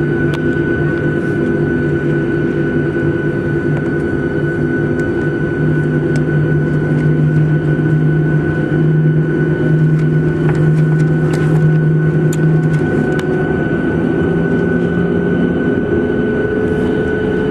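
Cabin noise of a Boeing 737-700 taxiing, with the steady hum of its CFM56-7B jet engines at low thrust. A low drone swells in the middle and then fades, and there are a few faint clicks.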